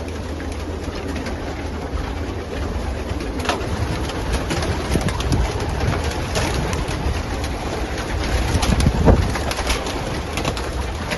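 A loft full of racing pigeons cooing, with many short wing flaps and scuffles as the flock moves down through an opened door.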